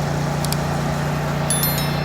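A small electric motor, likely a toy construction vehicle's, running with a steady hum. About a second and a half in comes a brief, high, metallic tinkle.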